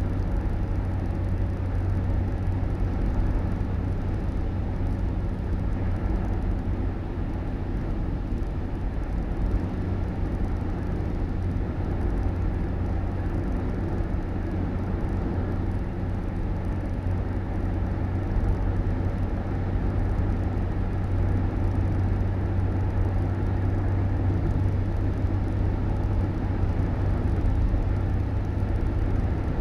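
Steady low rumble of a vehicle on the move, with an even hum and road noise that hardly change.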